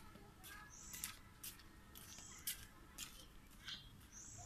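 Faint outdoor ambience with a small bird giving short high chirps about three times, every second or two, and a few light sharp clicks.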